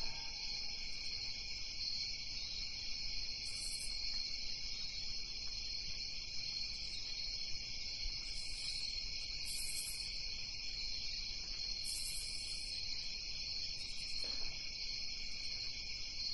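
Night insects chirping in a steady high-pitched chorus, with short higher-pitched buzzes coming and going every few seconds.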